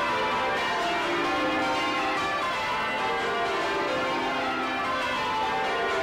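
Change ringing on the 1932 Taylor ring of twelve bells (tenor in C), heard close up in the bell chamber with the bells swinging full circle. The bells strike one after another from highest to lowest in repeated descending runs, their ringing tones overlapping.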